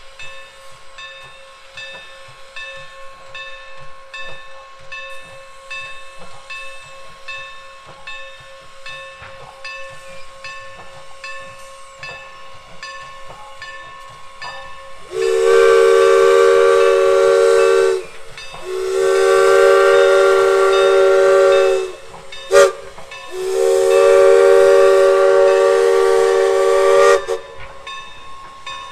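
Norfolk & Western #475, a 4-8-0 steam locomotive, runs past with a regular beat, then sounds its chime steam whistle loud: long, long, short, long, the grade-crossing signal.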